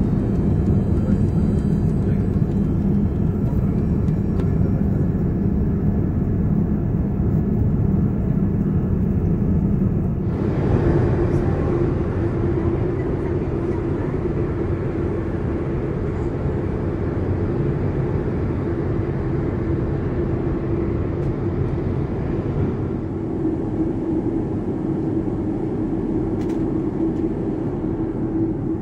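Steady noise of a Boeing 787-9 airliner. About ten seconds in the sound changes abruptly, becoming brighter, with a steady low tone running through it.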